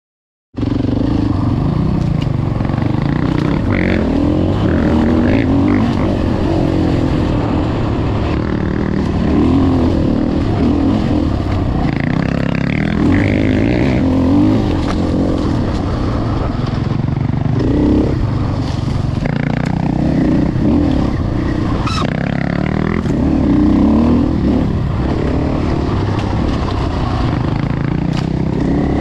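Enduro dirt bike engine running hard on a trail ride, revving up and dropping back again and again as the throttle is worked. It starts about half a second in, and there is a sharp click about two-thirds of the way through.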